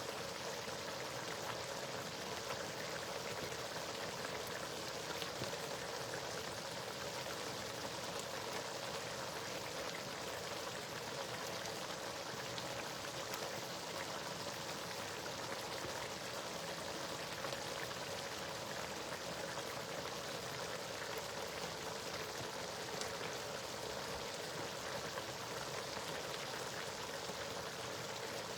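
Pot of spinach stew in red palm oil simmering on the heat, giving a steady hiss of bubbling and sizzling with faint fine crackles.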